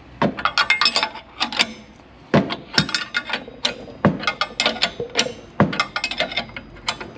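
A 7/8-inch box-end wrench and an adjustable wrench clicking and clinking against a nut and bolt in irregular short bursts, with a light metallic ring. The nut is being turned on a bolt-and-washer puller that draws an old bushing out of a gyrocopter rotorhead.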